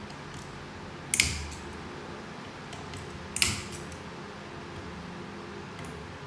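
Two sharp metal clinks, about two seconds apart, each ringing briefly, as small parts are handled on a Mercedes 722.9 transmission valve body during disassembly, over a steady low hum.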